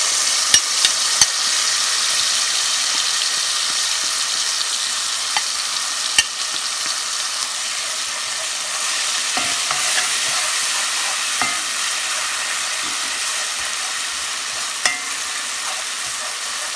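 Wet curry masala paste frying in hot oil in a metal pot: a steady sizzle that eases slightly as it fries down, while a spoon stirs it. A few sharp clicks of the utensils knocking against the pot.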